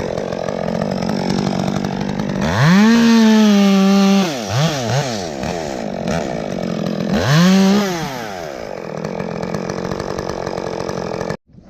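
Chainsaw idling, then revved up to full throttle twice, about two and a half seconds in and again about seven seconds in, with short throttle blips between. The engine sound stops abruptly near the end.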